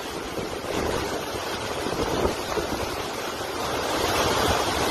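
Hurricane wind blowing hard, a steady rush of noise with gusts buffeting the microphone, growing a little louder over the second half.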